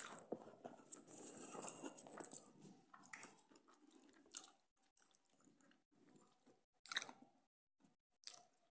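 Quiet chewing of soft homemade orange cake, up close, with a few short clicks in the second half.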